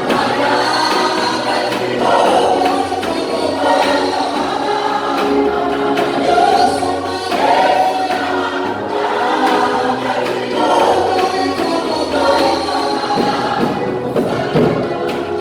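A choir singing gospel worship music with instrumental backing.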